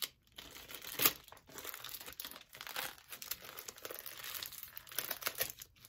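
Plastic mailer bag and paper wrapping crinkling and tearing as a parcel is pulled open by hand, in irregular crackles with a louder one about a second in.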